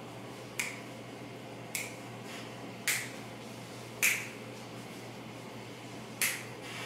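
Fingers snapping five times, about once a second, with a longer gap before the last snap, over a faint steady room hum.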